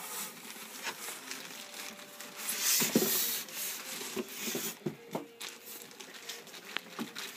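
Box packaging rustling and rubbing as a car amplifier is pulled out of its box, with a few light knocks. The rustling is loudest about two and a half to three seconds in.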